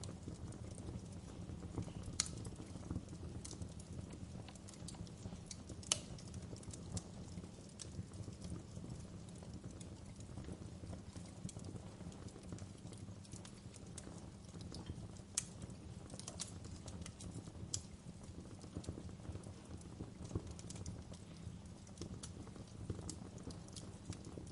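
Fireplace crackling: a steady low rumble of burning wood with scattered sharp pops and snaps, a few louder ones about 2, 6, 15 and 18 seconds in.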